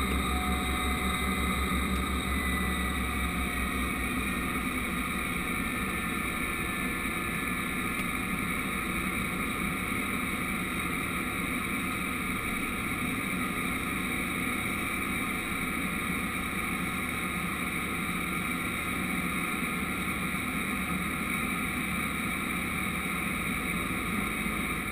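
Cessna 208B Caravan's Pratt & Whitney PT6A turboprop running at low taxi power, heard from inside the cockpit: a steady turbine whine over the propeller's hum, easing off slightly in the first few seconds.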